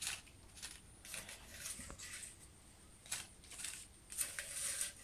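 A series of short rustling swishes, irregularly spaced, loudest near the end.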